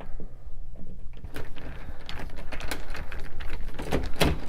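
A light-switch wall plate being taken off: a run of small, irregular clicks and taps beginning about a second in, with a louder knock near the end.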